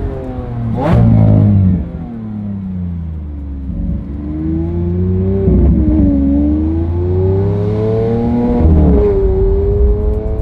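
Lamborghini Aventador's V12 engine pulling through the gears, with a sharp crack and a sudden drop in pitch at an upshift about a second in and again near the end. Between the shifts the engine note falls as the driver eases off, then climbs again under acceleration.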